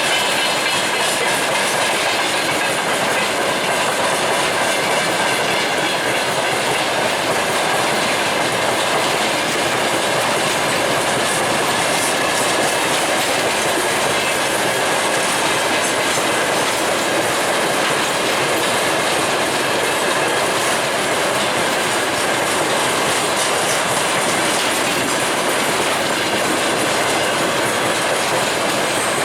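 Freight train of railway tank cars rolling past, wheels clattering steadily over the rail joints, with a faint high steady whine from the wheels.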